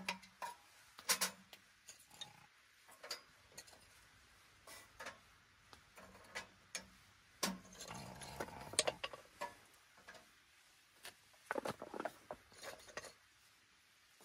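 Thin sticks of firewood clattering and knocking against the steel firebox of a Tent-Mark Designs Wood Stove Side View as they are fed in: a string of irregular clicks and knocks, busiest in the first few seconds and again around the middle.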